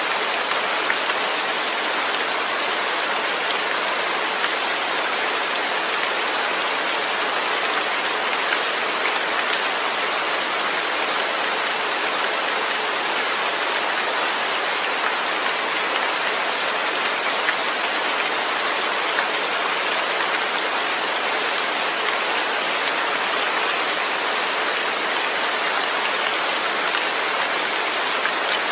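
Steady rain falling, an even dense hiss of drops with no thunder.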